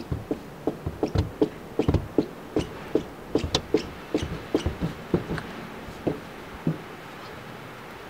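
A rapid, irregular series of short knocks and crunches, about three to four a second, that stops shortly before the end.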